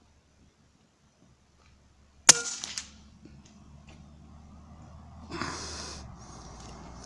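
A single shot from a compressed-air rifle a little over two seconds in: one sharp crack with a short ringing tail. Rustling and handling noise follows, with a louder burst of noise about five seconds in.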